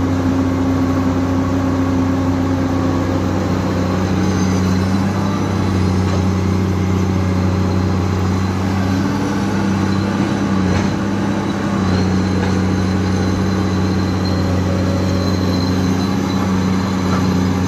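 Komatsu PC210LC excavator's six-cylinder diesel engine running steadily close by. Its note shifts briefly about ten seconds in.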